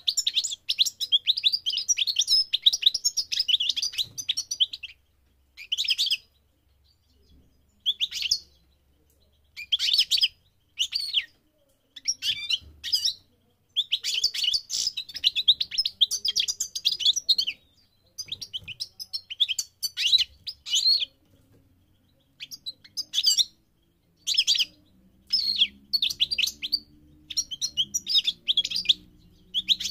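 European goldfinch singing in bursts of rapid twittering phrases, some lasting several seconds and others brief, separated by short pauses. A faint low hum comes in near the end.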